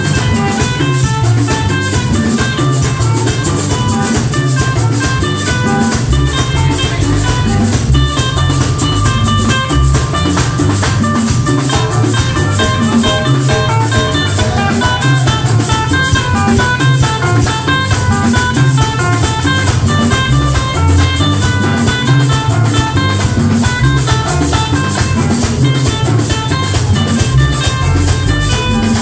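Live band playing dance music through PA speakers: a button accordion carries a quick melody of short notes over electric guitar and a steady drum and percussion beat.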